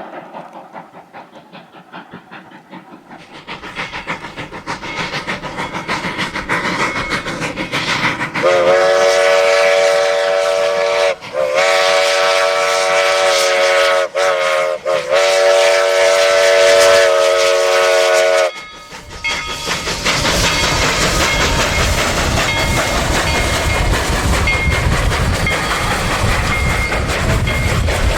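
Steam whistle of Denver and Rio Grande Western No. 315, a narrow-gauge 2-8-0 steam locomotive, blown in four blasts (long, long, short, long), the grade-crossing signal, as the train comes closer. The train then passes close by, loud, its cars clattering over the rails.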